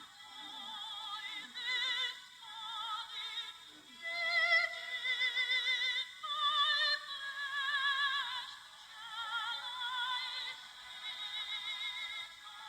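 Background music: a high, operatic-style singing voice holding long notes with wide vibrato.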